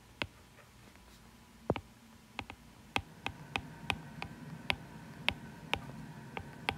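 Stylus tip tapping and clicking on a tablet's glass screen while handwriting: faint, sharp, irregular ticks, a few at first and then two or three a second from about two seconds in.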